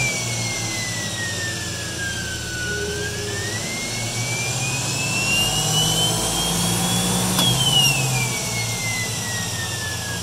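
1982 UM Electrek's separately excited DC drive motor revving under its original analog Soleq controller: a high motor whine falls, climbs steadily to a peak about seven seconds in, then drops. Each drop is steep at first and then gentler, as the motor regenerates down to base speed and then coasts down from there.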